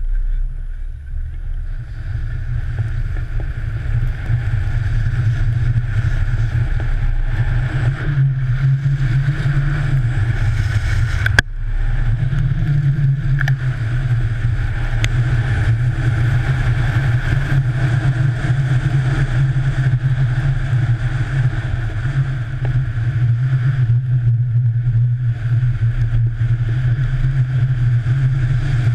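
Skis running downhill over snow with wind rushing past, heard as a heavy muffled rumble and a steady hiss through a GoPro Hero3's waterproof housing, building over the first couple of seconds. A single sharp knock comes about eleven seconds in.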